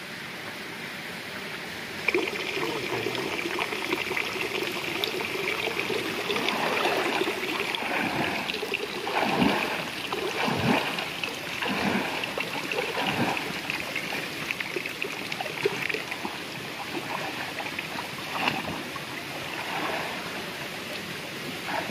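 Water splashing as a man swims across a river, with a run of separate splashes in the middle stretch, over the steady rushing of the flowing river.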